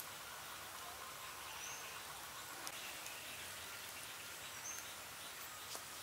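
Quiet outdoor ambience: a steady hiss of background noise, with a short high bird chirp twice and a couple of faint taps.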